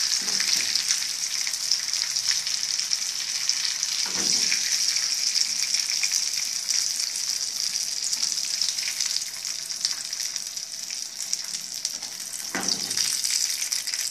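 Breaded king mackerel pieces sizzling in hot oil in a frying pan, a steady fizzing hiss that thins somewhat past the middle as pieces are taken out. A few brief knocks of the tongs against the pan, about four seconds in and near the end.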